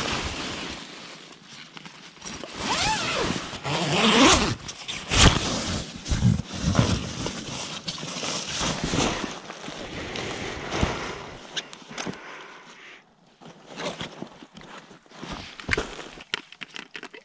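Tent door zipper being pulled open, with rustling of nylon tent fabric and gear being shifted about; the handling noises grow sparser toward the end.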